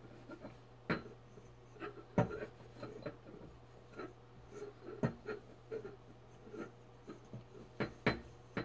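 Silver-plated metal goblet being scrubbed with a small handheld scrubbing pad: uneven rubbing strokes broken by sharp clicks and knocks, the loudest about two seconds in and again near the end.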